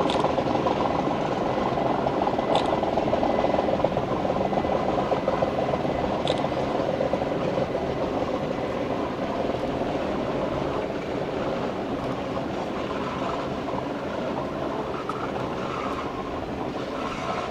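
Metre-gauge Rhaetian Railway passenger train rolling over a stone viaduct: a steady rumble of wheels on rails that slowly fades as the train moves away, with a few faint high ticks.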